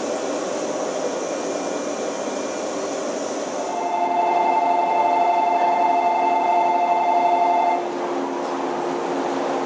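A loud, steady two-tone departure buzzer sounds about four seconds in and cuts off sharply after about four seconds, over the steady hum of a stopped Shinano Railway 115 series electric train.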